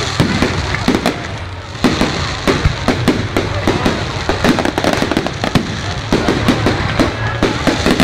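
Aerial firework shells bursting in quick succession, a dense run of sharp bangs, several a second, over a continuous crackle.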